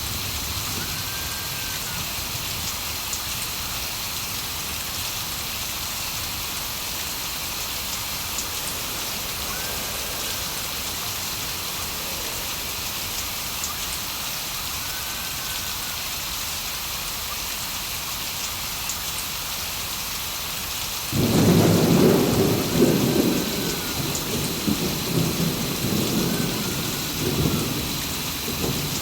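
Steady heavy rain falling. About three-quarters of the way in, a sudden loud rumble of thunder breaks in and rolls on, swelling and fading.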